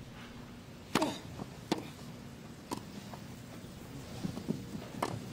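Tennis ball struck by rackets in a rally on a grass court: a serve about a second in, then sharp hits back and forth, four in all, the serve the loudest, over a low steady background murmur.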